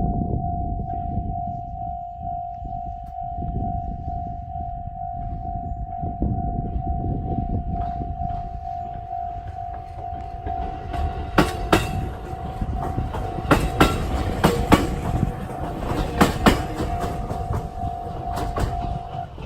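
Japanese level-crossing alarm with the JR Central-type electronic bell, ringing as an evenly repeating tone that stops near the end. A Joshin Electric Railway train rumbles over the crossing, its wheels clacking over the rail joints in the second half.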